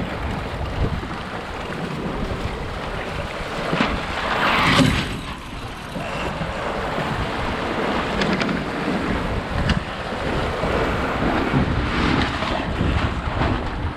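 Wind buffeting the microphone over water rushing and splashing along a sailing dinghy's hull, with a louder surge a little under five seconds in.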